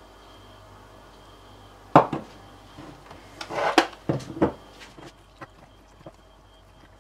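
Glassware handled on a tabletop: a sharp knock about two seconds in, then a short scrape ending in a clunk as a glass bowl is moved and set down, two more knocks, and a few faint clinks of a metal spoon in the glass bowl as mixing of the sourdough starter begins.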